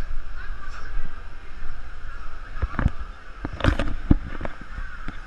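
Muffled rumble heard through a GoPro Hero3's waterproof housing, with a few dull knocks from about halfway in: footsteps climbing the stairs of a slide tower.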